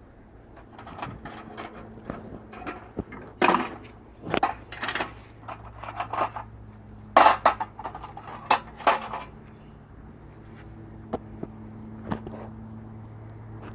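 Metal hand tools and tractor parts clinking and knocking, an irregular string of sharp strikes, over a low steady hum.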